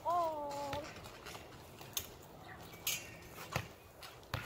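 A short vocal cry, held for under a second and falling slightly in pitch, at the start. Then four light knocks and thumps spread over the next few seconds as bodies and a ball hit a backyard trampoline.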